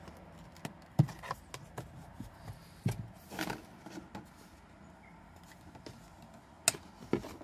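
A plastic pry tool clicking, tapping and scraping against a dash speaker and its mounting as the speaker is levered out of the dashboard. Several sharp clicks and knocks come about a second in, near three seconds and twice near the end, with a short scrape about halfway.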